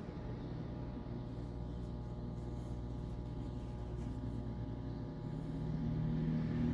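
Brastemp 11 kg top-load washing machine running steadily in its drain-and-spin self-test, a machine hum with several steady tones. About five and a half seconds in a stronger, louder hum comes in.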